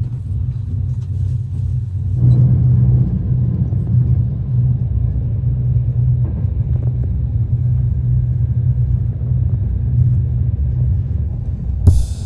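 A steady low rumble that gets louder and rougher about two seconds in.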